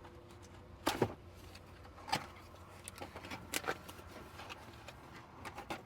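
Cardboard box being opened by hand: a scattering of short scrapes, taps and rustles from the flaps and packing, some seconds apart, over a faint steady hum.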